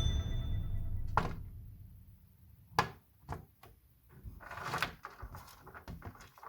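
Background music ending and fading away, followed by a handful of short, irregularly spaced knocks and clicks.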